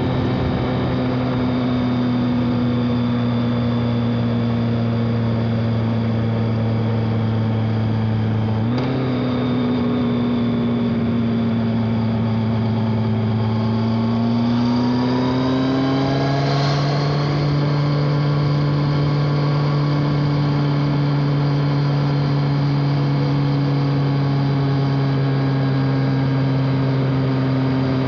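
BMW K1200R Sport's inline four-cylinder engine through its stock exhaust, running at a steady note while ridden. There is a brief click about nine seconds in. Around the middle the engine note rises over a couple of seconds, then holds steady at the higher pitch.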